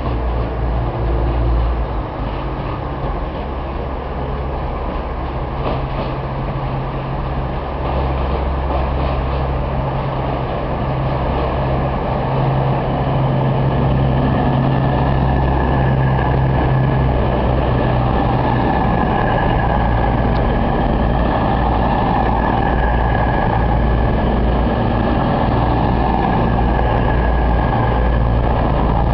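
East Midlands Trains diesel passenger train running slowly into the platform, its engine hum steady and loud, growing louder about halfway through as the train draws alongside. A steady high whine rises over the engine noise in the second half.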